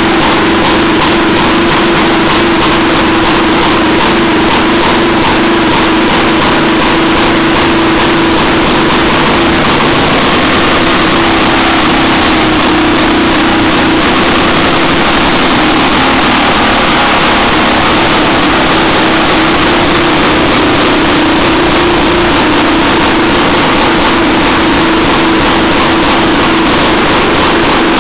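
Antique Jacobsen two-stroke reel-mower engine from the 1920s or early 1930s running steadily, its speed wavering slightly now and then.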